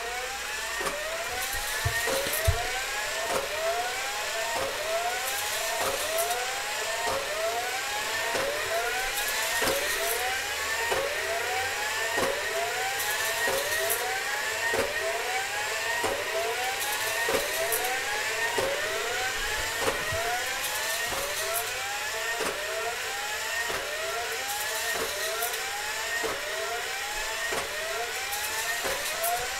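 Small electric K'NEX toy motors running, their whine rising in pitch over and over about once a second, with light plastic clicking.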